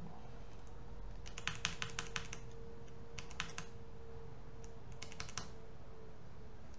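Computer keyboard typing in three short bursts of quick key clicks, over a faint steady hum.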